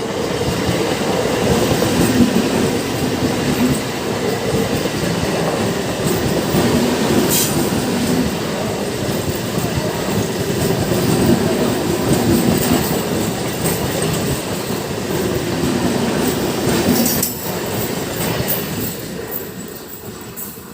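An Eastern Railway EMU local train passes close by, its wheels rumbling and clattering over the rail joints. The sound fades away over the last few seconds.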